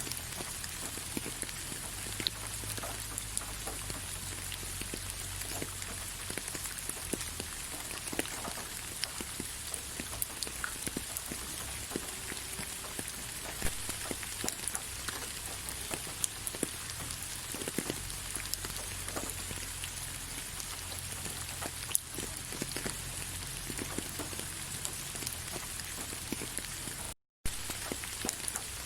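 Rain falling on leaves: a steady hiss with many scattered drops ticking individually. The sound cuts out completely for a split second near the end.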